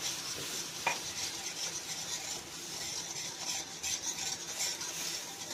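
Metal wire whisk swishing and scraping around a cold kadhai, beating cocoa powder, sugar and milk into a chocolate syrup. It is a continuous stirring hiss with faint repeated strokes, and no sizzle, since the pan is not yet on the heat.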